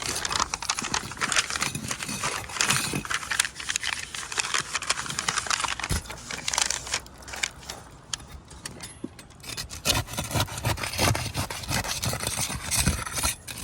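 Asphalt roof shingles being lifted and handled, with bursts of crackling and scraping as the old, brittle tabs are pried from their seal and crack. There is a quieter stretch in the middle.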